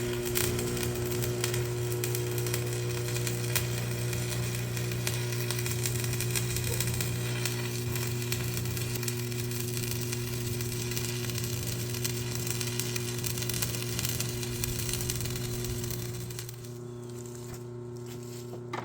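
Electric arc welding on the steel jaws of a skid steer's bale grabber: the arc makes a steady crackling sizzle over a constant hum. The crackle stops about sixteen and a half seconds in while the hum carries on.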